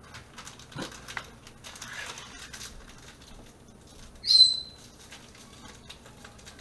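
Small clicks and rustling from hands working at a kitchen counter, with one short, sharp, high squeak a little over four seconds in that is the loudest sound.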